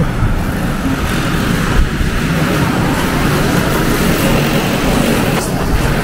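Strong snowstorm wind buffeting the microphone: a loud, steady rush of noise.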